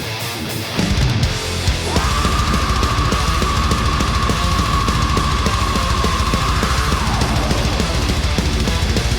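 Heavy metal music with electric guitar and a steady driving beat. A held lead note enters about two seconds in and fades out near seven seconds.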